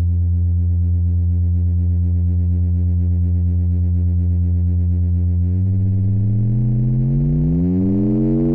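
Cre8audio Capt'n Big-O analog Eurorack oscillator holding a steady low buzzing tone. About five and a half seconds in, frequency modulation is brought in and the overtones spread and glide upward, so the tone turns wobbly and metallic.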